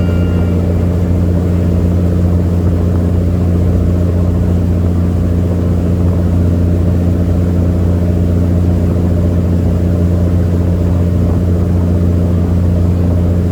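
Sightseeing boat's engine running with a steady low drone, heard on board.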